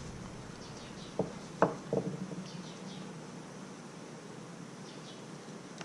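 Three light clicks from small carburetor parts being handled, a little over a second in, the middle one the loudest, over a faint steady hum.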